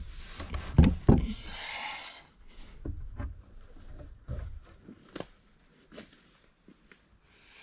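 Knocks and thumps from someone moving about in a wooden hunting high seat close to the microphone. Two heavy knocks come about a second in, then a short rustle, then scattered lighter taps and bumps on the wood that thin out toward the end.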